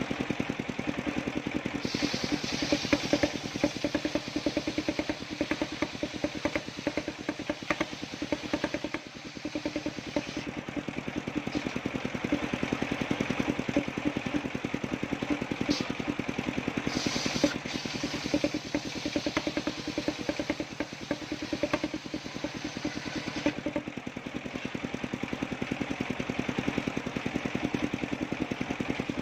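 Engine driving a homemade circular-saw sawmill, running steadily with a fast, even pulse. A few short hissy stretches come through on top.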